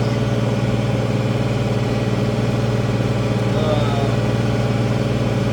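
International Harvester 1566 tractor's six-cylinder turbo diesel engine running steadily under load, pulling a field cultivator.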